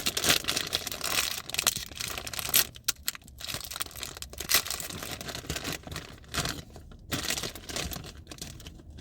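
Candy packaging crinkling and tearing as an Airheads mini bar is opened and unwrapped, in irregular rustling bursts that thin out toward the end.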